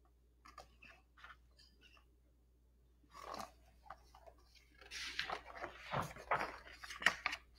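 Faint paper rustling and soft handling noises as the pages of a picture book are turned, mostly in the second half.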